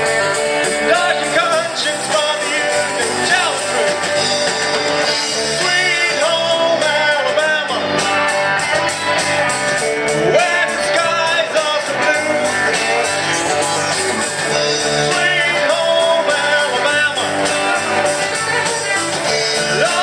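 Live rock band playing a song: electric guitars, bass and drum kit with a steady beat, and a man singing lead into a microphone over the band.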